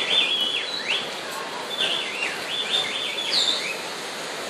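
A songbird singing: phrases of quick whistled notes that swoop up and down, each phrase about a second long with pauses between, over a steady background hiss.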